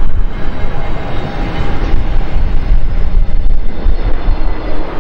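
Airbus A321-251NX (A321neo) on final approach with its gear down, its CFM LEAP-1A turbofans running as a loud, steady jet rumble with faint steady whining tones over it.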